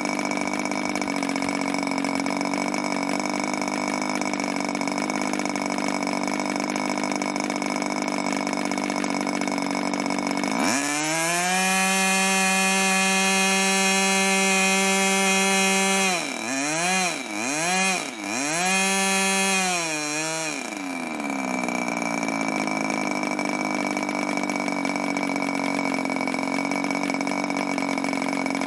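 Webra Silverline .61 two-stroke model glow engine driving an 11x7 propeller. It runs steadily at low speed, then about a third of the way in it revs up quickly to a higher, louder note and holds it for several seconds. It then drops and picks up again three times in quick succession before settling back to low speed.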